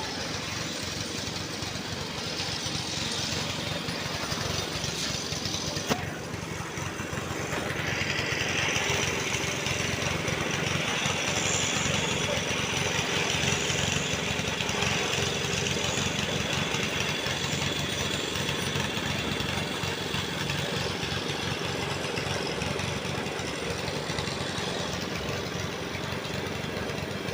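Engine of construction machinery running steadily, growing louder about eight seconds in, with a single sharp click about six seconds in.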